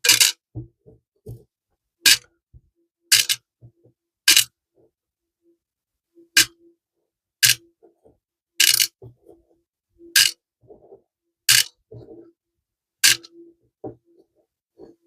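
Small metal screws being dropped one at a time into a container while sorting, each landing with a sharp clink, about ten in all at uneven intervals of a second or so, with faint handling sounds between.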